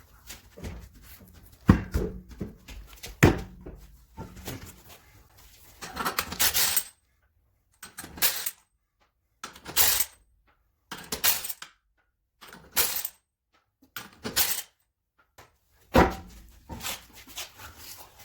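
Metal clanks, knocks and scraping from work on a vehicle's wheels and jack, in short separate bursts. Two sharp knocks come in the first few seconds.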